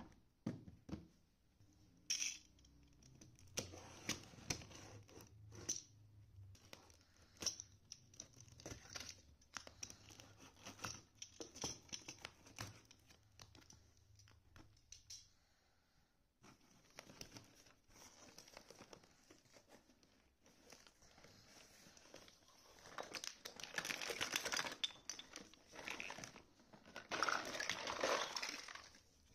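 A cardboard box being opened by hand: packing tape is pulled and torn, and the cardboard flaps rub and crinkle, with many small taps and knocks. The crinkling of cardboard and tape gets louder and denser near the end.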